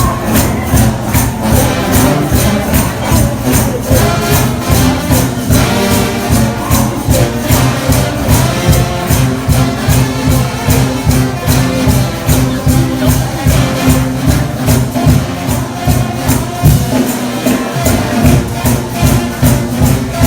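Loud church shout music with a fast, steady beat and sustained low tones.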